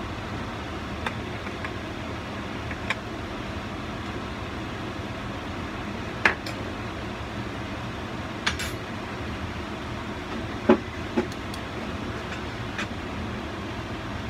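Steady kitchen background noise with a few scattered sharp clinks of utensils or dishes, the loudest about six seconds in and a close pair near eleven seconds in.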